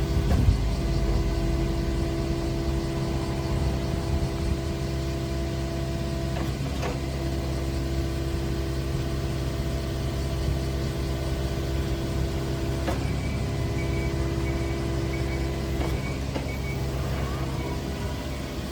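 Komatsu PC45MR-5 mini excavator's diesel engine running steadily, with a few short knocks spaced several seconds apart.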